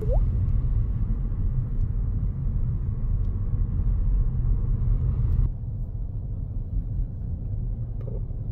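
Steady low rumble of a car on the move: road and wind noise with no clear engine note.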